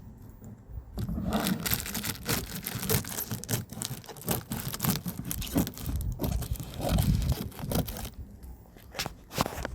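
A box being torn open by hand: a long run of ripping and crinkling of the packaging that starts about a second in and stops about two seconds before the end, then a few short rips.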